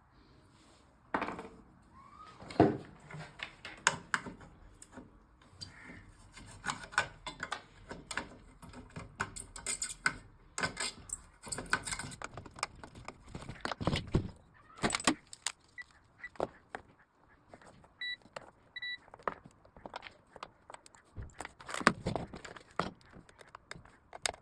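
Irregular clicks, taps and clatter of tools and small hard parts being handled on a workbench, with two short beeps about three-quarters of the way through.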